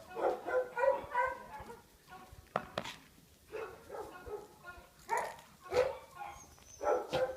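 Dogs barking and yelping: a quick run of short, high-pitched calls in the first second or so, then single sharp barks every second or so.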